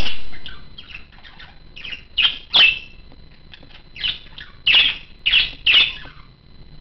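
A small pet animal giving a series of short, high squeaky calls, the loudest ones in quick pairs and groups with fainter chirps between them.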